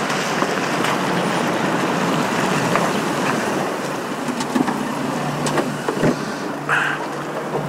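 UAZ Patriot SUV driving slowly over wet asphalt and pulling up, its engine running under a steady hiss, with a few small clicks near the end.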